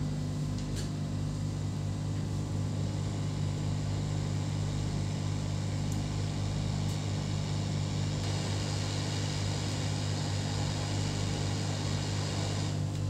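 Hot-air rework station blowing steadily onto a laptop motherboard while a replacement MOSFET is soldered in: an even airy hiss over a steady low fan hum.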